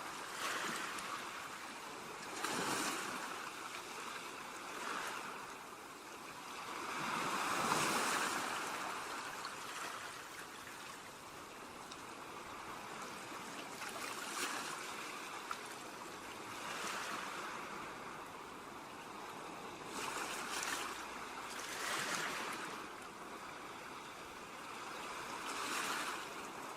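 Ocean surf breaking on a beach, a steady wash of water noise that swells with each wave every few seconds and ebbs between them.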